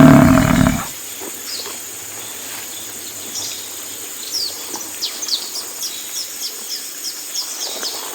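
The tail of a loud, deep animal call, ending about a second in, then many short, quick bird chirps over a steady background hiss, getting busier about halfway through.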